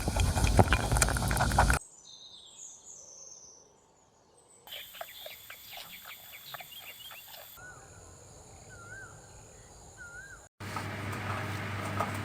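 Bird calls: faint chirps, then a run of short chirps and clicks, then three short wavering whistled notes. A loud, noisy stretch fills the first two seconds and another the last two.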